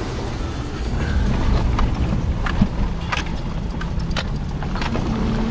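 Car interior road noise while driving: a steady low rumble from engine and tyres, with a run of light, sharp clicks and rattles over it through the middle seconds.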